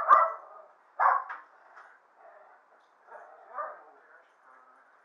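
A dog barking a few short times, loudest about a second in, with fainter barks past three seconds, heard through a thin, poor-quality recording.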